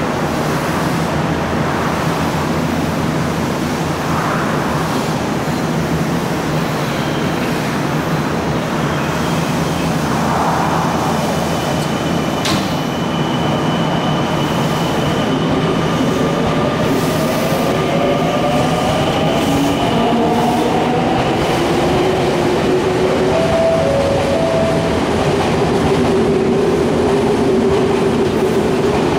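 Senboku Rapid Railway 5000 series electric train pulling out of an underground station. A steady hum while it stands is broken by a sharp click about twelve seconds in. Then the whine of its traction motors and inverter rises in pitch as it accelerates and levels off near the end, over the rumble of the wheels.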